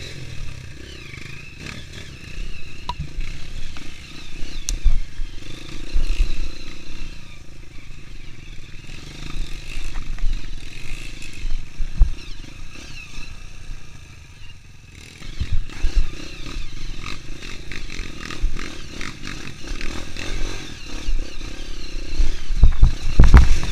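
Honda CRF230F dirt bike's single-cylinder four-stroke engine running under load over rough trail, with clattering and knocking as the bike and camera jolt over roots and rocks. The loudest knocks come near the end.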